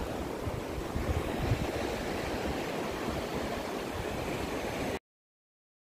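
Shallow river running over stones, a steady rushing wash, with some wind buffeting the microphone; it cuts off abruptly about five seconds in.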